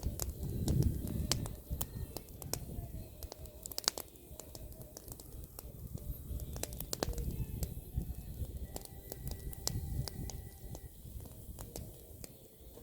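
Bonfire of pruned apple branches crackling, with many sharp pops and snaps at irregular intervals over a low rumble.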